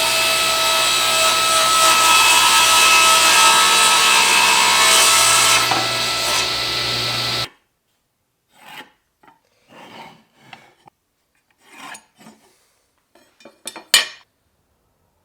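A woodworking power machine running loud and steady as it cuts wood, then stopping abruptly about seven and a half seconds in. After that come scattered light handling sounds, with one sharp knock near the end.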